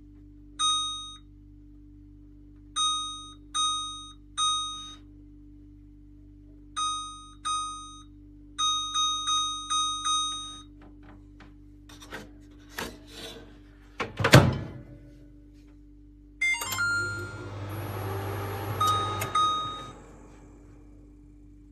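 Microwave oven keypad beeping with each button press: about a dozen short, identical beeps. Then a few clicks and a loud thunk about two-thirds through, followed by the oven running with a low hum for a few seconds, with more beeps over it.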